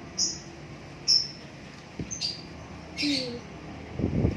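A small bird giving short, high chirps about once a second while it is held for stitching, with a brief rustle of handling near the end.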